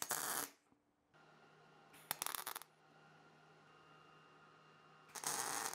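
MIG welder laying three short tack welds, each about half a second long and a couple of seconds apart, fixing the ears of a small scrap-metal piece.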